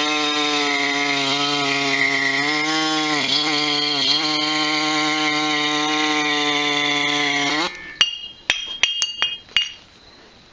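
Ridgid pneumatic air saw running at a steady high buzz as it cuts through a rusted steel snubber mount, its pitch dipping briefly twice under load, then cutting off abruptly near the eighth second. A few light metal clinks follow.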